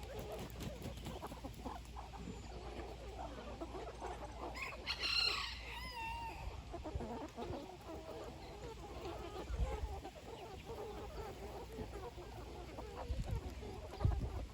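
A flock of chickens clucking continuously, with one louder, higher-pitched call about five seconds in.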